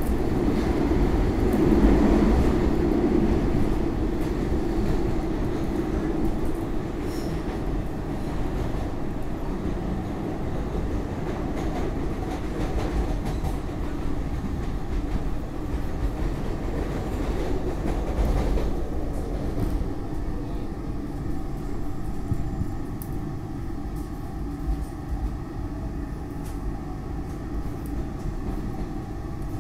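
SEPTA Market-Frankford Line M-4 train car running along the track, with a continuous rumble of wheels on rail heard from inside the car. It is loudest in the first few seconds and then eases off. From about two-thirds of the way through, a steady hum of several tones sits over the rumble.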